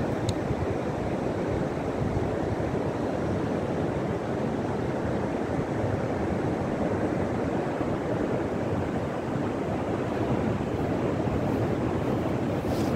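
Sea surf breaking and washing up over flat wet sand: a steady, unbroken rushing.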